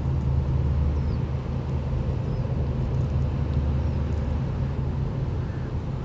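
A passing ship's engine running with a steady low drone. A few faint short high chirps sound over it.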